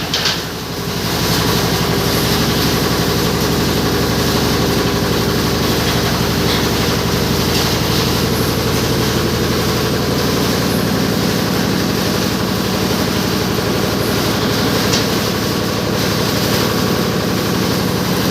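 Yanmar 10 hp single-cylinder diesel engine running steadily, driving a waste-sorting machine, with a few clanks right at the start.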